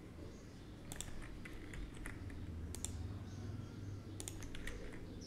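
Computer keyboard keystrokes and mouse clicks, a handful of scattered clicks over a low steady hum.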